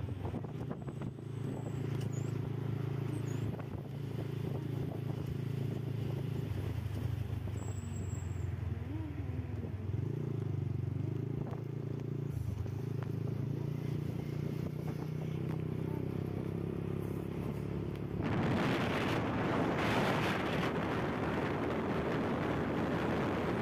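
Motorcycle engine running steadily under way, a low drone. About three quarters of the way through, a louder rush of wind on the microphone comes in over it.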